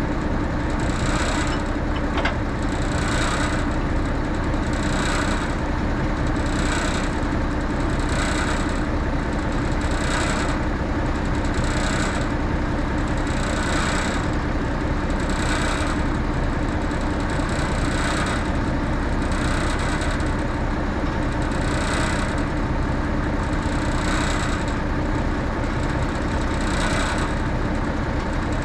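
The engine of a 1964 Kenworth self-loading log truck idling steadily, with a hiss that swells and fades about every two seconds. A single sharp click comes about two seconds in.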